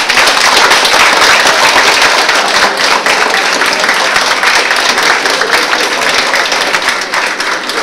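Applause from a small audience in a room: many people clapping steadily, fading slowly near the end.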